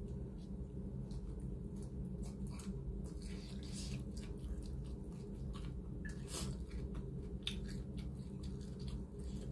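Mouth sounds of someone chewing a mouthful of rice eaten by hand, with scattered soft clicks and smacks over a steady low hum.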